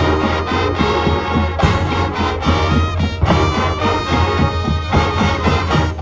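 High school marching band playing a brass-led, swing-style tune, horns carrying the melody over steady drum hits and a low bass line.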